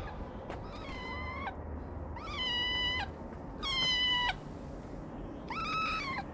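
A black-and-white kitten meowing four times, each call under a second long and falling in pitch at its end. The first call is fainter than the other three.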